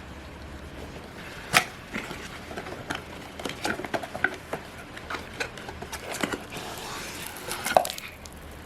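Irregular clicks, taps and rustling of a boxed item being handled and unpacked. There is a sharp click about a second and a half in and another near the end.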